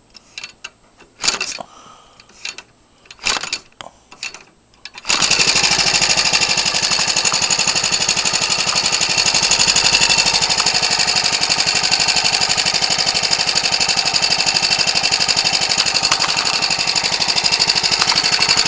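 Ryobi (MTD) 29cc four-stroke string-trimmer engine fitted with a wooden propeller, hand-flipped with a few clicks and short bursts, then catching about five seconds in and running steadily. It runs lean on its stock non-adjustable carburetor, as the owner puts it.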